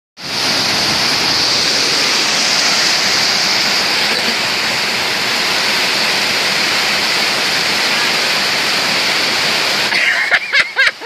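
Rushing river water, a steady loud hiss that stops abruptly about ten seconds in, followed by a few short chirps.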